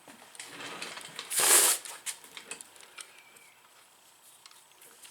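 A C-clamp being fitted and worked on a motorcycle brake caliper to spread the pads apart: light metal clicks and handling noise, with one short rasping scrape about a second and a half in.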